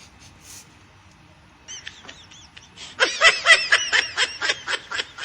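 High-pitched laughter: a few short squeaky giggles about two seconds in, then a loud, fast run of short 'ha' bursts about four or five a second.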